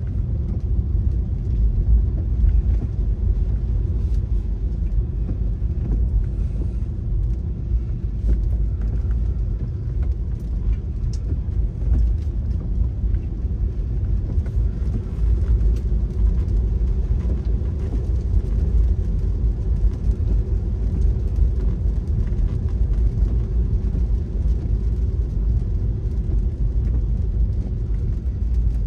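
A car driving along, with a steady low rumble of engine and road noise.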